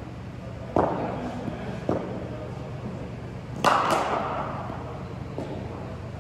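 Sharp knocks of hard cricket balls being struck and landing, echoing in a large hall. There is a loud knock about a second in, a softer one a second later, then two quick knocks about three and a half seconds in.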